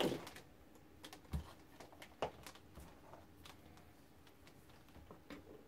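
Faint, scattered clicks and light rattling of test leads and their clips being handled and connected.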